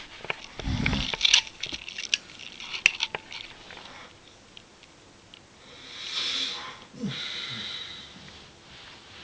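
Snoring: a short low rattling snore under a second in, then scattered crackly clicks, and a long noisy breath from about six to eight seconds in.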